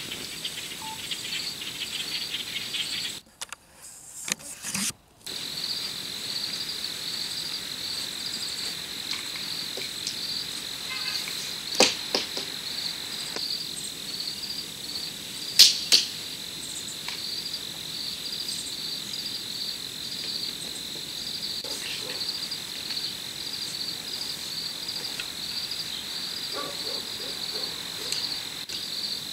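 Insects chirping in a steady, high, evenly pulsing trill, with two sharp knocks around the middle.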